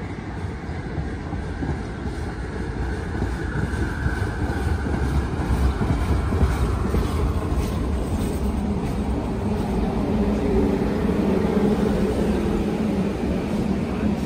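St. Louis Car Company R44 subway train pulling into the station and slowing alongside the platform, with a low rumble from the wheels on the track. A falling whine comes about four seconds in, and a steady low hum follows in the second half.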